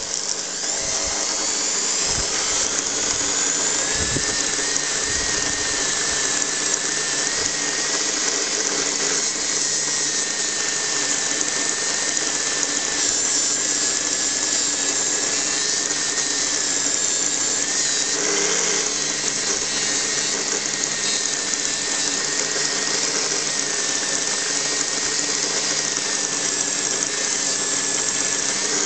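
Cheap mini bench grinder running steadily while a metal miner's lamp is held against its buffing wheel: a steady motor whine with a slightly wavering high tone and the hiss of the polishing.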